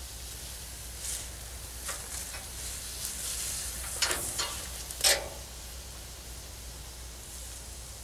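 Pump sprayer wand spraying liquid onto an air-conditioner condenser coil: a hiss that builds and is loudest around three to five seconds in, with short sharp spurts near four and five seconds in.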